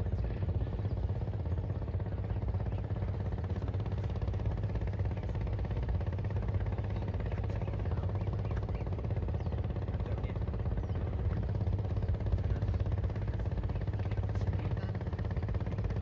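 A steady low engine rumble that runs evenly, with no change in pitch or level.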